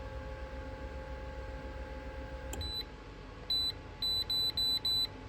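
Handheld OBD-II code reader plugged into the car, giving short high-pitched electronic beeps as it tries to read trouble codes: a single beep, another a second later, then four quick ones. A low steady hum stops at the first beep.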